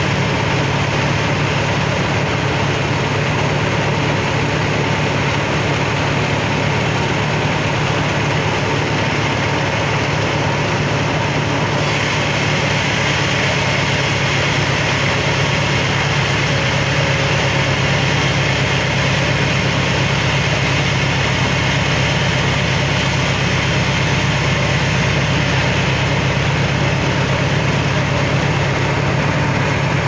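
Band sawmill running steadily and sawing albasia wood, with a constant low machine hum. A brighter hiss comes in about twelve seconds in and drops away again about thirteen seconds later.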